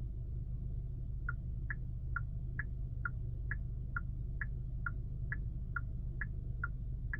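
Turn-signal indicator ticking evenly inside the car cabin, about two ticks a second with a slight tick-tock alternation, starting about a second in, over a steady low cabin rumble.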